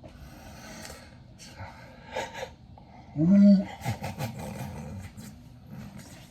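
A man's loud, deep burp about three seconds in, lasting about half a second.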